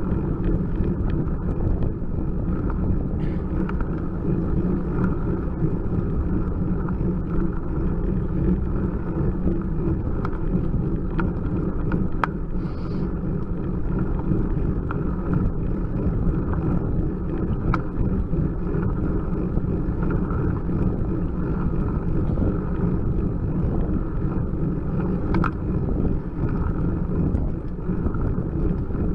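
Steady low wind and road noise from a road bicycle climbing slowly, picked up by a bike-mounted camera's microphone, with a few faint clicks.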